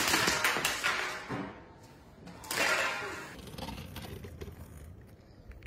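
A clattering crash as a boy on inline skates falls onto a concrete floor, his hockey stick and skates hitting the ground, with a burst of knocks dying away within about a second. A second rush of noise follows about two and a half seconds in.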